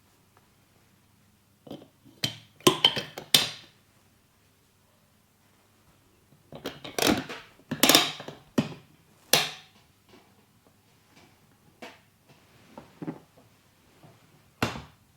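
Neck joints cracking during a manual neck adjustment: two bursts of rapid sharp pops, about two seconds in and again from about seven to nine and a half seconds, then a few light clicks and a single crack near the end.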